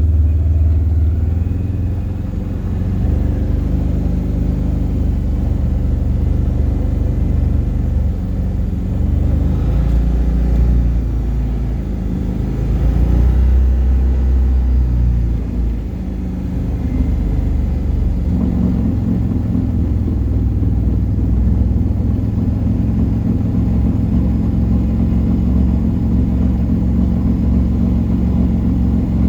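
Can-Am Defender side-by-side running, its engine and drivetrain giving a continuous low drone that swells and dips in the first half, then holds steadier. This is the front-differential noise that the owner is recording to diagnose.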